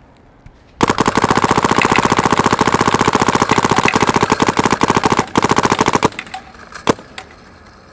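SP Shocker XLS paintball marker firing a fast, continuous string of shots for about five seconds, with a brief break near the end, then a couple of single shots.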